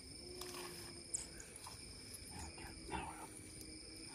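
Faint chorus of insects: several steady, high-pitched buzzing and trilling tones, one of them cutting in and out, with a few soft clicks about a second in and near three seconds.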